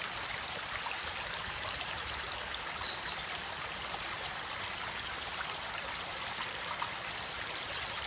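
A small, shallow stream running over stones: a steady rushing and trickling of water.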